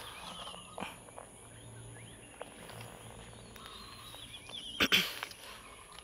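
Garden ambience: a steady high-pitched insect drone with a few faint bird chirps. About five seconds in comes a brief loud rustle of leaves and handling as the camera is pulled away from the nest through the foliage.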